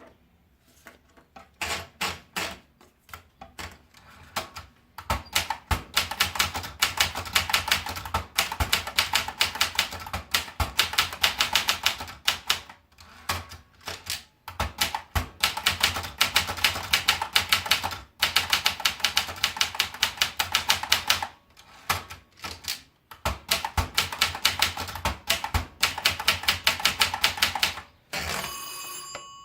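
Olympia Splendid 33 manual portable typewriter being typed on in fast runs of key strikes with short pauses. Near the end the typing stops and the carriage bell rings once, its tone fading out.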